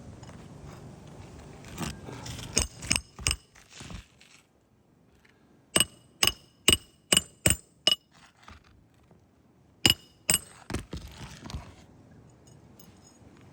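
Hammer striking metal, plausibly driving roofing nails, each blow ringing sharply. There is a quick run of six evenly spaced strikes, about two a second, in the middle, a few scattered blows before it and two more near the end, with scraping and handling noise between them.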